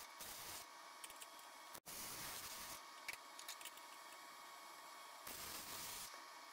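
MIG welder laying short welds on steel: a crackling, sizzling hiss from the arc that comes in bursts of about a second, with a lull of a couple of seconds in the middle.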